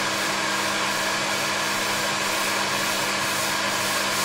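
Electric blower or fan motor running steadily: an even rushing hiss over a low, constant hum.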